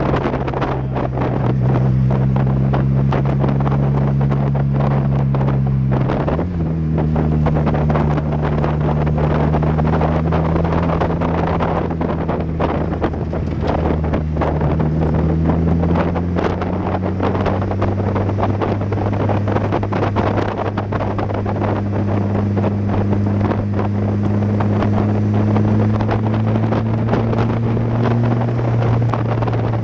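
Exocet open-cockpit car's engine running hard on track, with heavy wind buffeting on the microphone. The engine note jumps suddenly about six seconds in, then climbs slowly from about sixteen seconds on.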